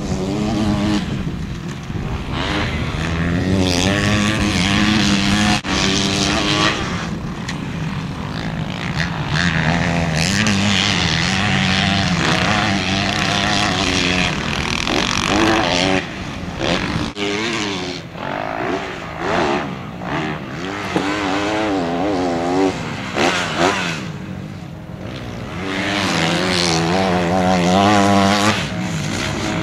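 Motocross bike engines revving hard on a dirt track, their pitch climbing and dropping again and again as the riders accelerate, shift and back off, with more than one bike heard at times.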